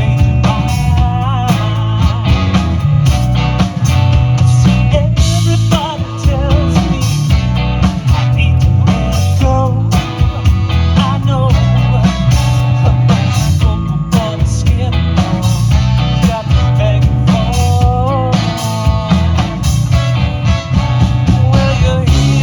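Live band music: singing over guitar, bass and drum kit with a steady beat, in a beach-music style.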